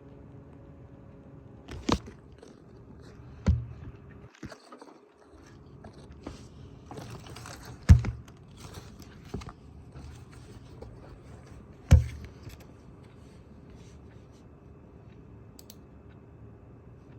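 850 W computer power supply giving off a steady low electrical buzz with several overtones, which cuts out briefly about four seconds in and then returns. Four loud sharp knocks stand out over the buzz.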